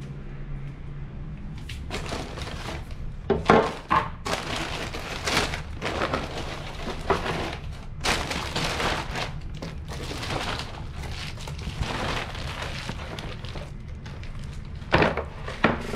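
Skateboard rolling, with a series of sharp wooden knocks and clacks of the deck striking the ground. The sharpest knock comes about three and a half seconds in.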